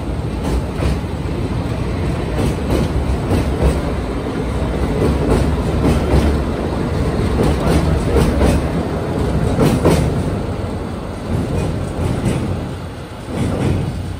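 Sagano sightseeing trolley train cars rolling past on a steel girder bridge: a steady rumble with the wheels clattering over rail joints, easing off near the end as the last car moves away.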